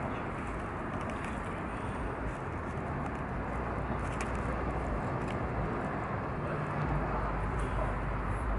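Steady outdoor background noise with a few faint clicks and scrapes of a plastic fork cutting a crepe in a foam takeout box.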